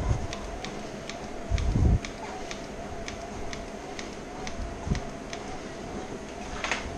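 Treadmill running with a steady motor whine, with light ticks about twice a second from walking steps on the belt. A dull thud comes about one and a half seconds in, a smaller one near five seconds, and a short louder rustle near the end.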